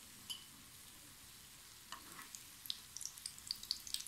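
Batter rosette fritters (shbabek el jenna) frying in hot oil in a pan: a steady sizzle, with crackling pops that grow thicker from about halfway.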